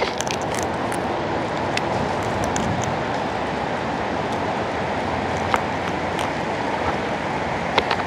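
Steady rushing of wind, with a few sharp clicks from sulphur-crested cockatoos cracking seed in their beaks.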